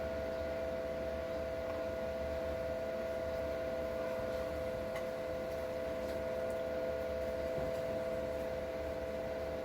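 A steady electrical or mechanical hum made of two close, unchanging tones, with a few faint ticks scattered through it.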